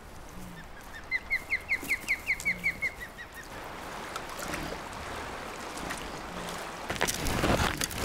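A bird calling a quick run of about a dozen short high chirps, rising then falling slightly in pitch, over the steady rush of river water. Near the end louder rough splashing and scuffing comes in as bison wade through the river.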